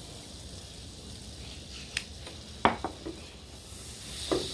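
Butter and olive oil sizzling in a hot frying pan, the hiss growing louder near the end, with a few short sharp knocks of the pan being moved.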